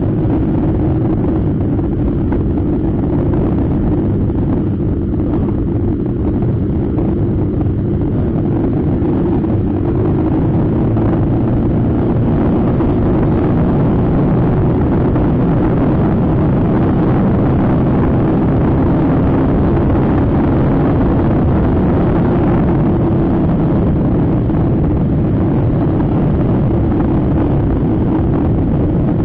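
Motor scooter riding at a steady road speed: a constant low engine drone under heavy wind rush on the microphone, with no marked change in pitch.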